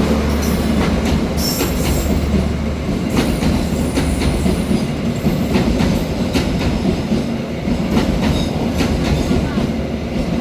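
Taksaka passenger train running along the track: a steady loud rumble with a low hum, and wheels clicking over rail joints many times.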